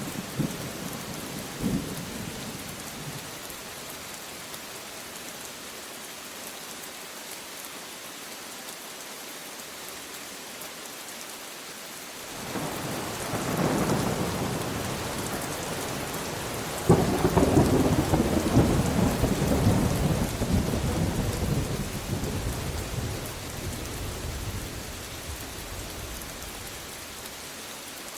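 Steady rain falling, with thunder: a rumble rolls in about twelve seconds in, then a sudden sharp clap a few seconds later opens a long, loud rumble that slowly fades.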